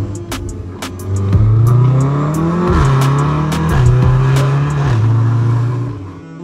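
Turbocharged four-cylinder engine of a tuned VW Golf R pulling hard under acceleration, its pitch rising and then dropping with quick gearbox upshifts. It settles to a steadier drone and eases off near the end.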